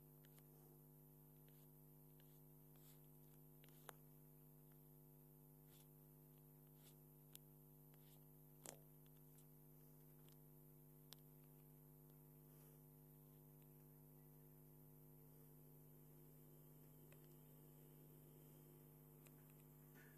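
Near silence: a faint steady hum, with a few soft clicks.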